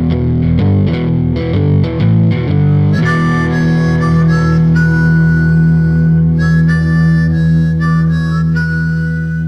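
Background music from a rock track: a chopped, rhythmic guitar figure that gives way about three seconds in to a held low note under a stepping high lead melody.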